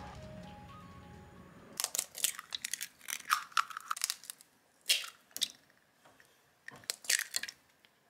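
Eggs being cracked one after another into a bowl, each a short cluster of sharp cracks and crunches from the breaking shell. Background music fades out in the first two seconds.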